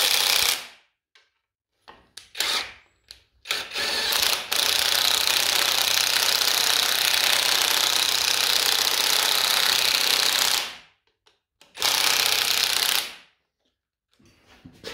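An air-powered tool, an impact wrench or air ratchet, running bolts in. It runs in short bursts, then one long run of about seven seconds, then a last short burst.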